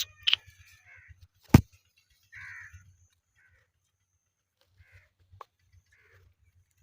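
Indian ringneck parrot giving short, harsh squawks: a loud one right at the start, a shorter one about two and a half seconds in, and a few faint ones after that. A sharp knock about one and a half seconds in is the loudest sound.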